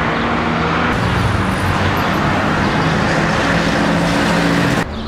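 Street traffic: a motor vehicle's engine running close by over a loud, steady rush of road noise, which cuts off suddenly near the end.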